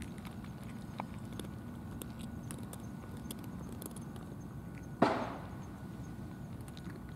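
Cats crunching dry kibble, faint scattered crunches over steady low background noise. A single sharp thump about five seconds in is the loudest sound.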